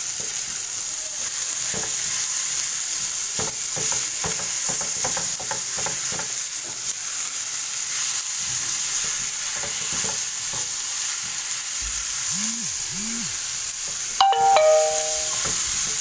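Chicken mince and chopped onions sizzling in a non-stick frying pan while they are stirred with a silicone spatula, with scattered scrapes and taps against the pan. About two seconds before the end, a brief, louder ringing ding.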